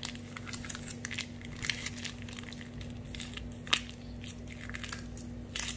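A plastic food sachet crinkling and crackling as it is handled and squeezed, with scattered small clicks and a sharper crackle near the end.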